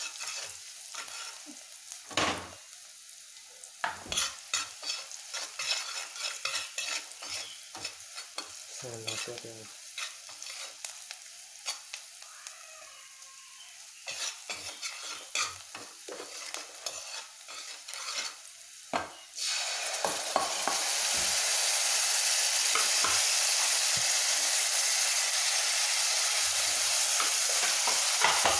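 Food cooking in a pan while it is stirred, with a utensil scraping and clicking against the pan. About two-thirds of the way in, a loud steady sizzle starts and holds.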